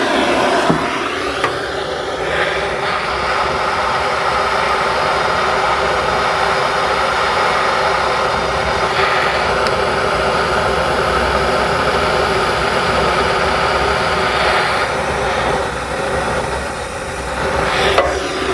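Wood-burning furnace's draft fan running steadily with a motor whine, switched on to pull a draft through the flue while the fire is lit.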